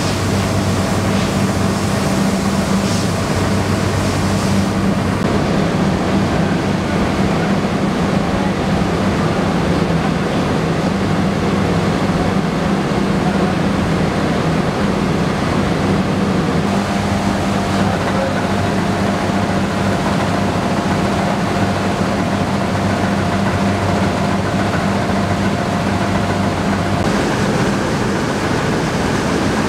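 Rice mill machinery running steadily: a continuous loud rushing noise with a low electric-motor hum underneath, which shifts slightly a couple of times.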